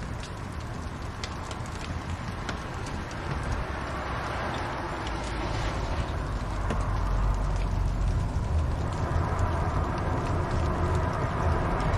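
Wood fire crackling, with scattered sharp pops over a steady hiss and a low rumble that grows louder about halfway through.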